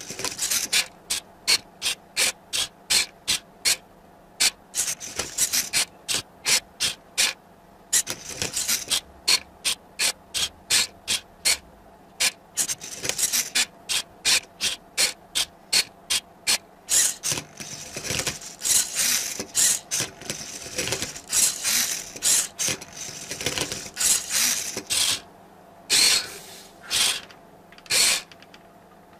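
Arduino-driven Rubik's cube solving robot at work. Its motors drive the mechanism in a rapid series of short mechanical clicks, about two to three a second, broken by longer stretches of continuous whirring and rasping as the cube is turned. Three separate bursts come near the end.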